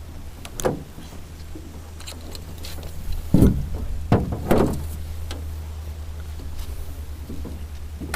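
A few hollow knocks and thumps, a handful in quick succession about three to four and a half seconds in, over a steady low hum.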